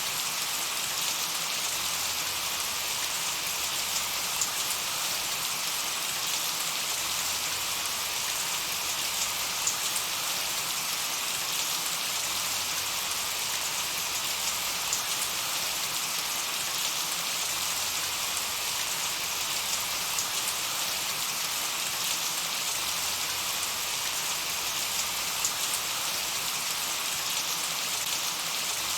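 Steady light rain falling, an even hiss with scattered patter of individual drops.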